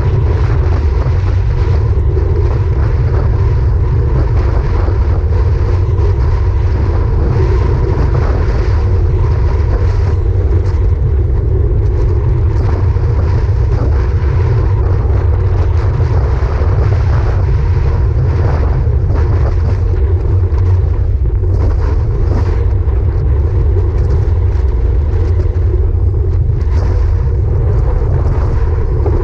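Wind rushing over a handlebar-mounted action camera's microphone on a road bike at about 24 mph: a loud, steady rumble of wind and road noise.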